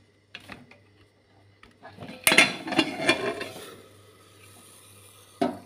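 Aluminium pressure cooker lid being twisted open and lifted off: a few light clicks, then a sudden clatter of metal about two seconds in that trails off over a second or so, and another loud clank near the end.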